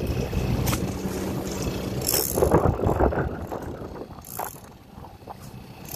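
Boat engine humming steadily, with waves splashing against the hull and wind on the microphone; the loudest splash comes about two and a half seconds in.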